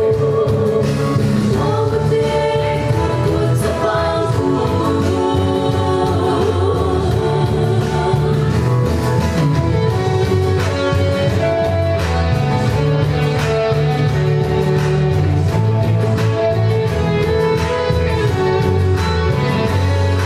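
A woman singing into a microphone over amplified accompanying music with a bass line and a steady beat.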